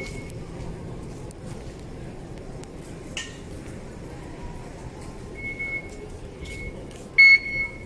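Steady background noise of a station concourse, with short high electronic beeps from the MRT fare gates as cards are tapped: a couple of quieter ones, then a louder double beep near the end.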